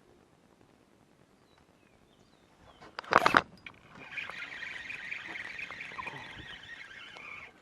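A fishing rod cast: a short, loud whoosh of line about three seconds in. Then a fishing reel cranked steadily in a whirring buzz for about three and a half seconds, which stops abruptly near the end.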